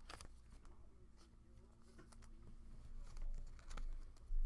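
Faint handling noises of trading cards and packs being sorted by hand: light scattered clicks and rustles, with a few soft low bumps in the last second and a half.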